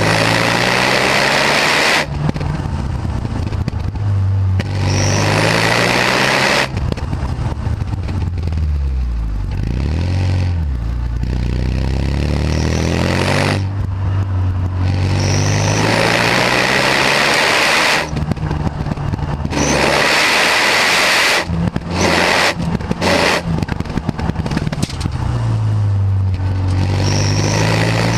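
Renault Mégane R26's turbocharged 2.0-litre four-cylinder through its stock exhaust, driven in repeated hard throttle pulls that cut off abruptly at each lift or gear change. Revs fall away slowly for a few seconds about a third of the way in, and there are several quick throttle stabs a little past two thirds of the way through.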